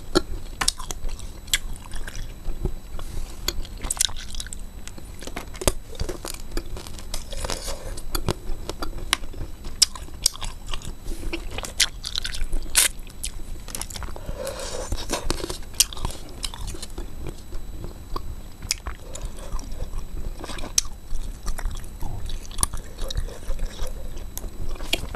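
Close-miked biting and crunching of frozen wax-bottle candy tubes: irregular crisp cracks as the frozen wax and syrup break between the teeth, with chewing between bites.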